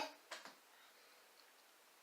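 Near silence: room tone, with the end of a child's word at the very start and a faint brief sound just after it.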